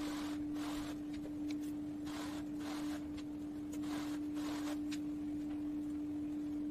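A hand rubbing and pressing white strips down onto a wooden cabinet frame, making irregular swishes of about half a second each, with a few faint clicks. A steady hum runs underneath.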